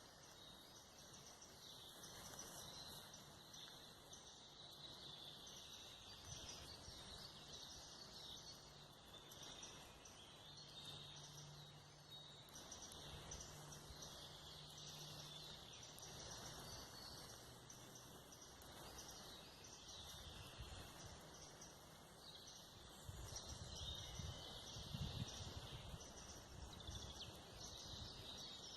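Faint woodland ambience with many small birds chirping throughout. A low steady hum runs through the middle, and a brief low rumble comes near the end.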